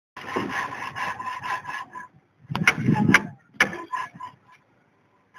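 Rhythmic scraping strokes, about four or five a second, for about two seconds. Then a louder stretch with a few sharp knocks.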